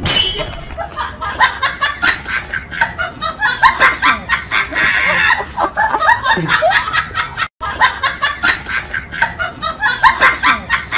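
Several people laughing in many overlapping short bursts, with a sudden brief break in the sound about seven and a half seconds in.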